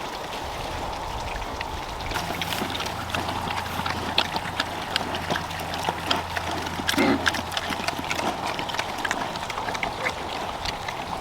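Water running steadily from a hose off a truck-mounted tank as it fills a pig waterer, with scattered small clicks and knocks. A low steady hum comes in about two seconds in and stops about nine seconds in.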